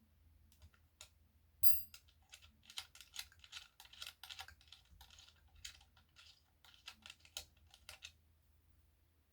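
Irregular light clicking and clinking of small metal hardware and tools being handled on a Floyd Rose tremolo bridge, with one sharper metallic ping that rings briefly about two seconds in.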